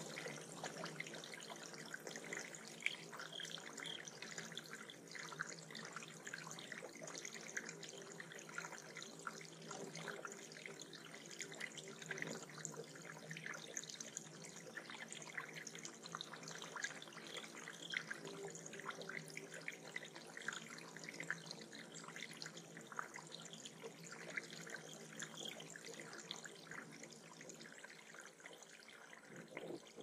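Water trickling and splashing steadily in a small backyard bird pond.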